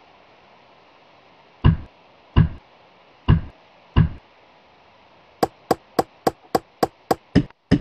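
Four heavy wooden thuds, a little under a second apart, as squared timber posts drop into the mortises of a sill beam. Then comes a quick run of about nine sharp, bright knocks, roughly four a second.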